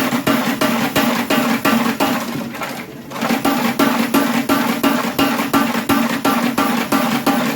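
Homemade cam-driven mechanical power hammer striking steel in rapid, even blows, about five a second, pausing briefly about three seconds in.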